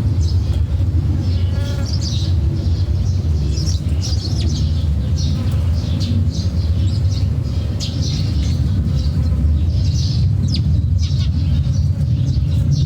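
Small birds chirping and twittering in many short, high calls, over a steady low rumble.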